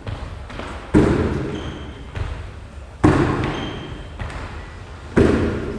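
Thumps of athletes dropping and landing on a rubber gym floor during bar-facing burpees: a heavy impact about every two seconds and lighter thuds between, echoing in a large hall.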